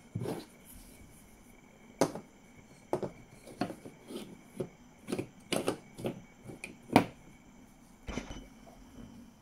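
Wooden toy train track pieces and plastic track supports knocking and clicking together as they are handled and fitted into place, in irregular taps, the loudest about two seconds in and again about seven seconds in.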